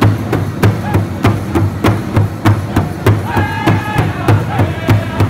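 Powwow drum group beating a large shared hide drum in a steady unison beat, about three strikes a second, for a Chicken Dance song. The men sing over it in high voices, loudest from about three seconds in.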